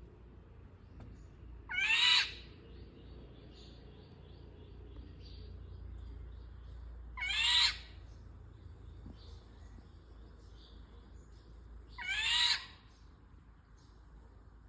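Indian golden oriole calling three times, about five seconds apart, each call short, about half a second. Faint high chirps sound between the calls.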